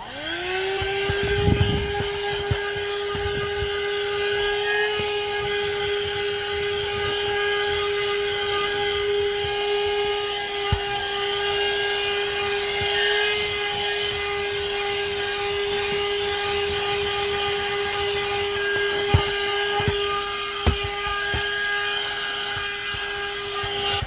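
AutoGrandpa 12V handheld car vacuum cleaner switched on, its motor whine rising quickly in pitch and then holding steady as the nozzle is worked over car carpet. A few short knocks sound over the whine.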